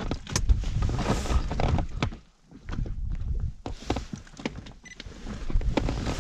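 A string of knocks and thumps from gear being handled in an inflatable boat, over a low rumble, with a brief lull a little past two seconds in.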